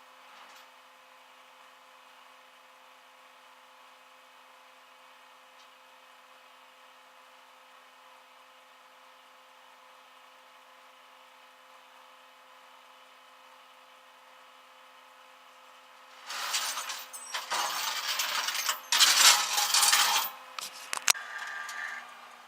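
A faint steady hum, then, about sixteen seconds in, some five seconds of loud, irregular metallic clattering and rattling, like tools and metal parts being handled.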